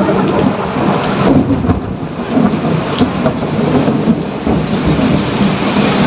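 Rain falling steadily with low rumbling thunder underneath, and scattered sharp drop ticks throughout.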